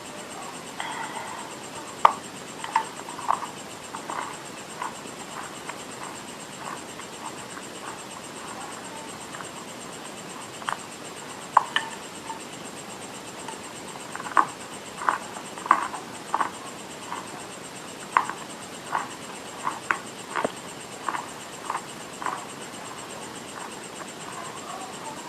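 Dry eating clay being bitten and chewed close to the microphone: sharp, crisp crunches in irregular clusters, with quiet gaps between them.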